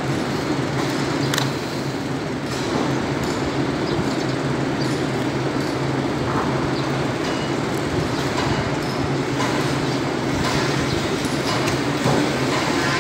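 A machine running steadily with a low hum, with a few faint clicks over it.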